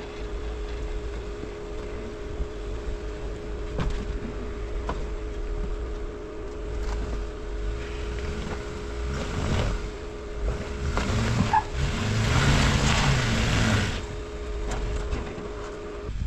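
Jeep engine running at a low rumble while crawling over rock. It builds to a louder rev about two-thirds of the way through, then eases off. A few sharp knocks come through along the way.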